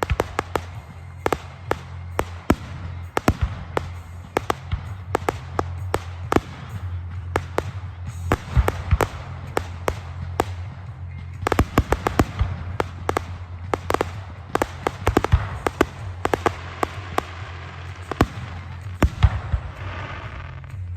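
Fireworks going off: many sharp pops and bangs at irregular intervals, coming thickest about eight seconds in, around twelve seconds in, and near the end. A steady low hum runs underneath.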